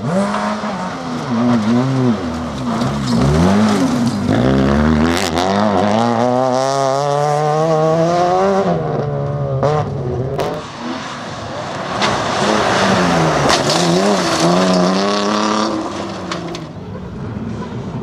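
Nissan Micra rally car's four-cylinder engine revving hard on gravel, the pitch climbing through each gear and dropping back at the gear changes, several times over.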